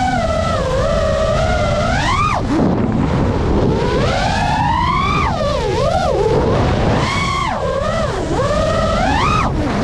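FPV quadcopter motors whining, their pitch sweeping up and down with the throttle: several surges that climb and then drop sharply, over a steady rush of wind and propeller wash.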